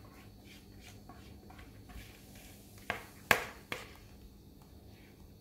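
Thick cake batter scraped out of a plastic mixing bowl into a round aluminium cake pan with a spatula: soft scraping and small ticks, then three quick sharp knocks a little past the middle, the middle one the loudest.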